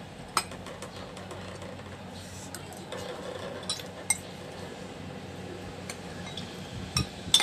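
Cutlery clinking and tapping against a plate while eating: a handful of sharp clicks spread out, the loudest near the end.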